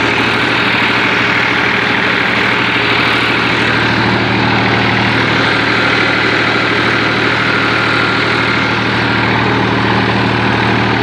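Massey Ferguson 245 DI tractor's three-cylinder diesel engine running steadily under load while pulling a rotavator, heard from the driver's seat.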